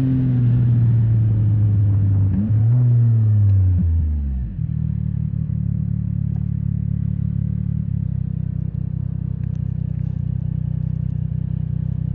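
CFMOTO 675NK motorcycle's inline three-cylinder engine winding down in revs as the bike slows, with a short rise in revs about two and a half seconds in. About four and a half seconds in it drops to a steady idle.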